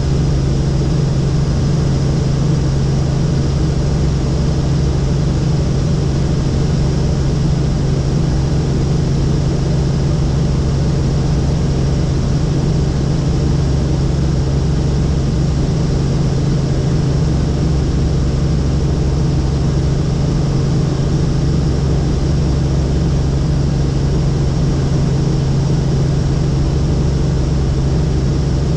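Helicopter in cruising flight heard from inside the cabin: steady engine and main-rotor noise with a constant low hum that does not change.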